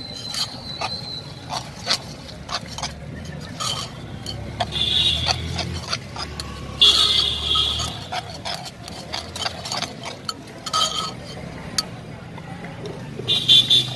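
Metal spoon stirring and scraping mashed green banana in a stone mortar, with many short irregular clicks and knocks as it strikes the bowl.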